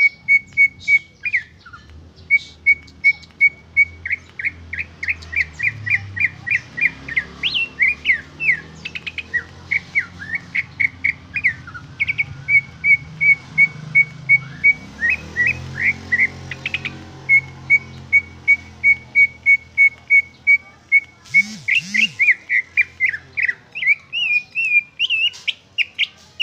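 Green leafbird (cucak ijo) singing: runs of rapid, evenly repeated high piping notes, about five a second, broken by quick rising and falling whistled phrases. It is the bird's own natural song, without mimicked phrases.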